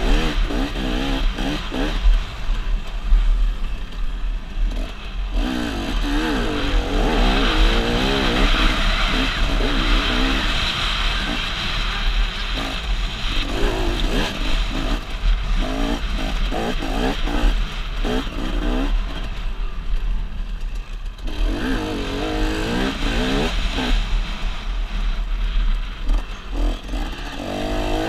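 Motocross dirt bike engine, heard from the rider's helmet, revving up and dropping back again and again as the rider works the throttle, with a steady low rumble underneath. The engine eases off briefly a few seconds in and again about three-quarters of the way through.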